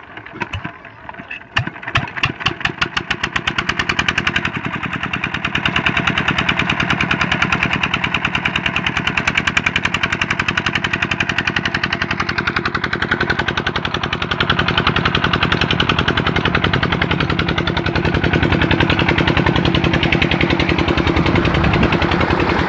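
Small single-cylinder Petter-type ('Peter') diesel engine starting: a few uneven chugs in the first two seconds, then it catches and runs steadily with a fast, even beat as it drives a well water pump. Near the end, water gushing from the pump outlet joins the engine.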